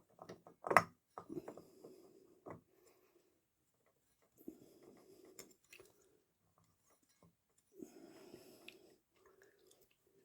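Scattered clicks and knocks of small parts being handled during motorcycle clutch reassembly, with a sharp clack about a second in and another near two and a half seconds. Soft breathy noise fills the stretches between them.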